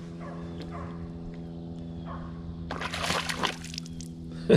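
A largemouth bass being let go over the side of a boat: a short splash and slosh of lake water about three seconds in, then a sharp knock near the end, over a steady low hum.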